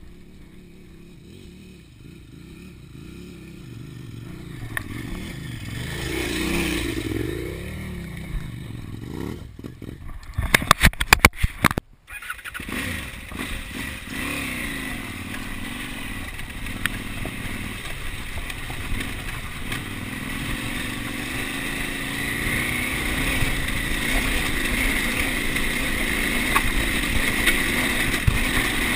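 A distant motorcycle engine working up a dirt track, its pitch dipping and rising. After a break about 12 s in, onboard sound of a KTM 950 Adventure's V-twin running steadily under way on a gravel trail.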